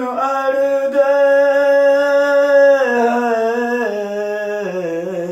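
A man's voice singing a Sufi kalam unaccompanied, holding one long note for about three seconds, then stepping down in pitch through the rest of the phrase.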